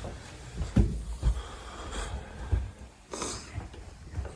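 A few dull footfalls, as of someone climbing stairs, with a short sharp breath near the end.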